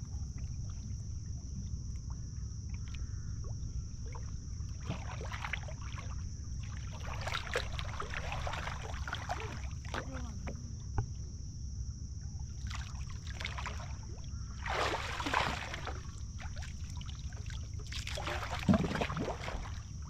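Water splashing and sloshing in irregular bursts as a person wades and works his arms underwater in shallow tidal water, the sharpest splash near the end. Under it, a steady low wind rumble on the microphone and a constant high hiss.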